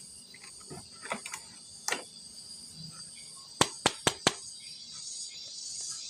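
Scattered sharp clicks, then four loud clicks in quick succession about three and a half seconds in, over a steady high trill of crickets.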